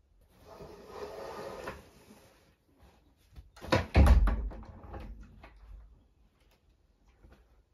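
A rustle of bedclothes, then a wooden casement window knocked and pulled open around four seconds in: a loud thump and several sharp knocks and rattles of the frame and latch.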